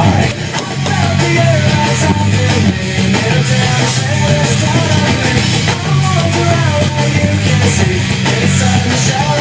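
Loud heavy rock music with guitar, drums and a singing voice.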